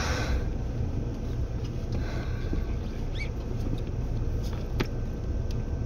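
Steady low rumble inside a Seibu 2000 series electric train car, with scattered light clicks and ticks and a short rising squeak about three seconds in.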